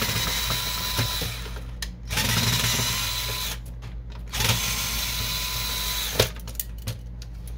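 Cordless drill/driver motor whining in three short runs of about a second and a half each, backing screws out of an inkjet printer's metal carriage frame. A sharp click comes after the third run.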